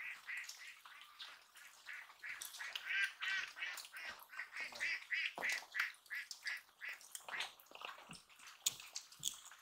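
Ducks quacking in a long run of short calls, about three a second, with a few knocks.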